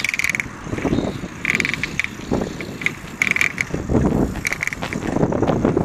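Bicycle freewheel ticking as the rider coasts, coming in short spells four or so times, with wind buffeting the microphone.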